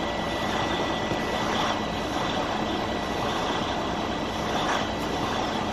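Freightliner Cascadia's Detroit DD-series diesel engine idling steadily at about 600 rpm, heard from inside the cab. It is the engine's first run after a rebuild for damaged main and rod bearings, with the oil pressure coming up.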